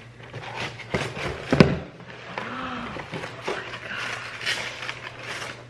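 Cardboard box and packing paper rustling and crinkling as a mug is pulled out of a gift box, with a sharp knock about one and a half seconds in.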